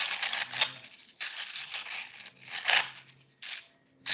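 'Foot 5' sound sample from an interactive movement-to-sound system: a texture sound meant to suggest stepping on a material, heard as about four short rustling, crunching bursts of noise.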